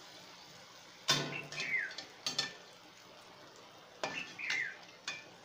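Anarse deep-frying in ghee in a kadhai, the ghee sizzling steadily, while a perforated metal skimmer clinks and scrapes against the pan as hot ghee is spooned over their tops. The loudest clinks come about a second in and again about four seconds in. The ghee poured over the top is what raises the lacy 'jali' on the anarse.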